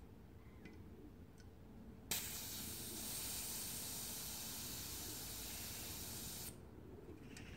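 Airsoft gas hissing from a can into a Tokyo Marui M9A1 gas blowback pistol magazine through its fill valve as the magazine is charged. The hiss starts with a sharp click about two seconds in, runs steadily for about four seconds, and cuts off suddenly.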